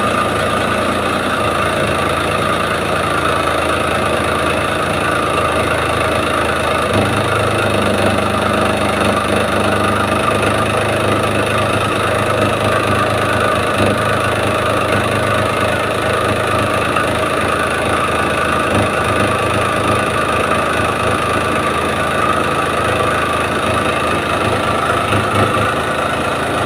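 Maruti Omni's three-cylinder petrol engine idling steadily just after starting, with a steady high whine over the engine note; this is the abnormal running sound the van was brought in for.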